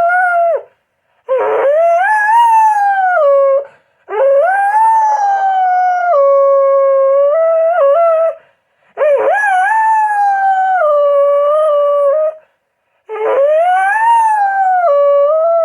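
Pet dog howling: a run of long howls, each three to four seconds, rising in pitch and then sinking to a held lower note, with short breaks between them.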